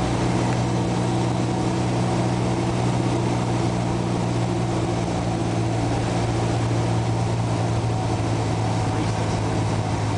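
Cessna 172's piston engine and propeller running steadily, an even drone with a constant pitch.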